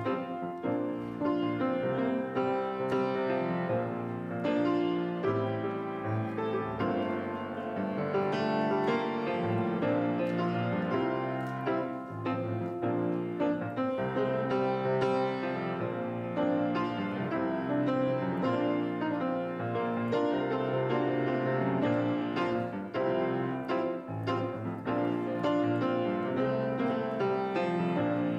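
Grand piano played solo: an unbroken stream of notes and chords without pauses.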